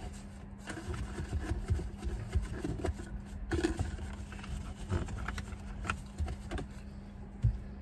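Eating sounds: chewing, with irregular clicks and small knocks of a fork against a paper plate. A steady low hum runs underneath.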